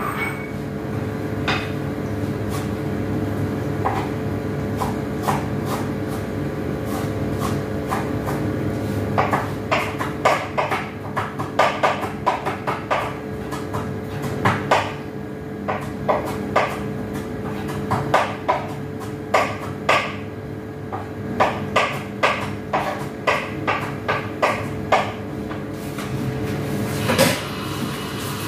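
Kitchen work at the counter and sink: irregular clinks and knocks of dishes, pots and utensils being handled, thickest in the second half, over a steady hum.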